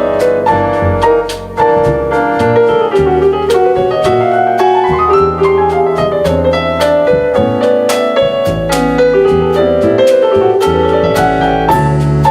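Live jazz with piano to the fore, over double bass and drum kit.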